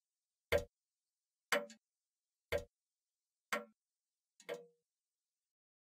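Clock ticking once a second: five evenly spaced ticks.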